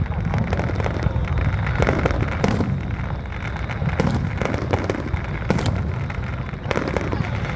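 Aerial fireworks bursting in a rapid display: sharp bangs every second or so over a continuous low rumble of booms.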